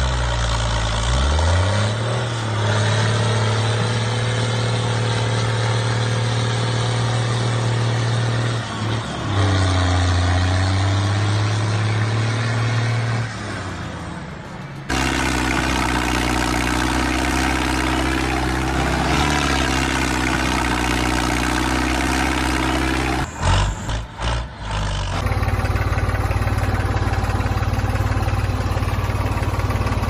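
A motor running with a steady low drone. It spins up in pitch about a second in, then shifts pitch and level abruptly several times.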